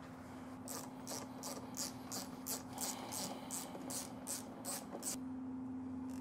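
Ratchet wrench working a fuel-tank mounting bolt loose on a Honda CRF230F: a run of about a dozen short ratcheting rasps, roughly three a second, which stops about five seconds in.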